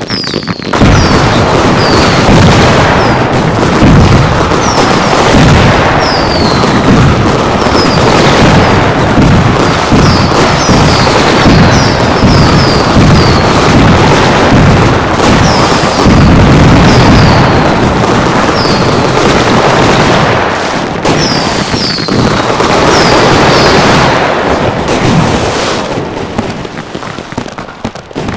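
A loud, dense, continuous barrage of fireworks explosions recorded close on an iPad, laced with many short, high, falling whistles. It eases off somewhat near the end.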